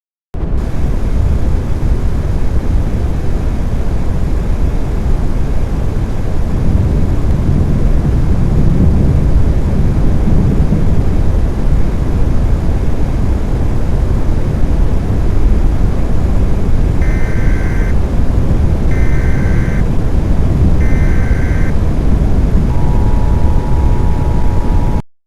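Loud, steady rumbling noise. Over it, about two-thirds of the way in, come three one-second bursts of warbling data tones, then the steady two-note attention tone: an Emergency Alert System / NOAA Weather Radio alert header announcing a warning.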